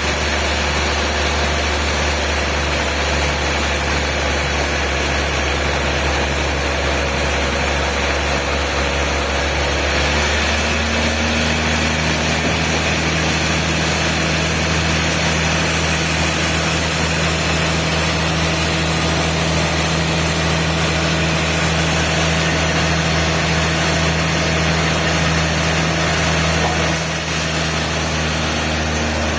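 Sawmill machinery running steadily with a low drone. About ten seconds in its tone shifts to a steadier hum, which eases off again near the end.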